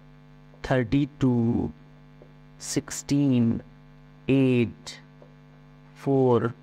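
A man's voice calling out numbers in four short phrases, over a steady electrical mains hum.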